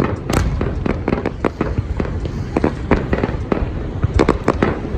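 Aerial fireworks bursting in a rapid, irregular string of sharp bangs and cracks, over a steady low rumble from the ongoing barrage.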